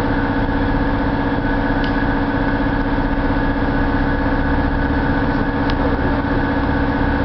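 SNCF BB 15000-class 25 kV AC electric locomotive standing with its onboard equipment running: a loud, steady electrical hum with a strong low tone and higher tones over it, unchanging throughout. Two faint clicks come through, one about two seconds in and one near the end.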